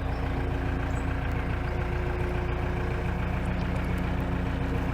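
Narrowboat engine running steadily under way, a low rumble with a constant hum.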